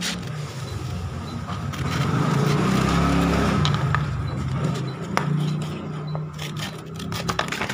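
A motor vehicle's engine going past, swelling to its loudest about three seconds in and then fading, with a few snips of scissors cutting sandpaper.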